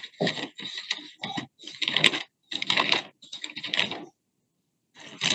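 Bible pages rustling as they are leafed through, in a run of short, irregular bursts with brief gaps between them.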